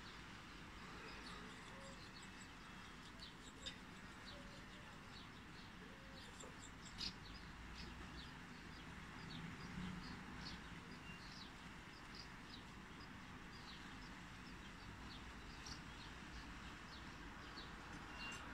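Many short, high bird chirps scattered over a steady, faint background hum of outdoor ambience, with two sharp clicks about four and seven seconds in.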